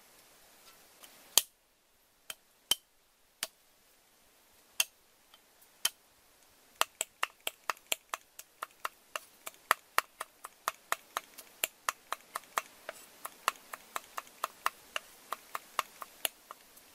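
Cleaver chopping garlic cloves on a round wooden chopping board. A few scattered chops come first, then from about seven seconds in a steady run of about three chops a second.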